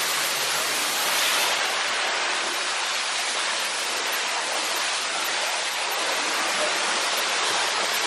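Steady rushing of water flowing down a water-park speed slide's flume.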